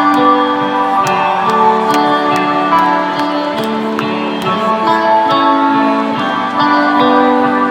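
Live band music with electric guitar over held, sustained chords and a light beat ticking about twice a second.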